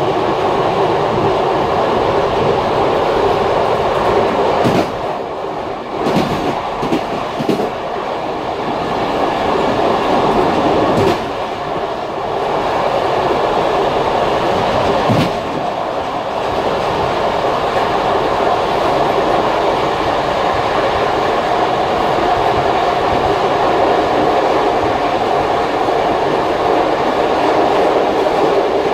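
Passenger train carriage running along the track, heard from inside: a steady rumble of wheels on the rails, with a few sharp clacks about 5, 11 and 15 seconds in and a short cluster of them between 6 and 8 seconds.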